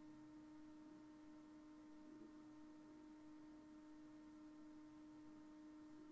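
Near silence with a steady electrical hum: one constant low tone with fainter overtones, unchanging throughout.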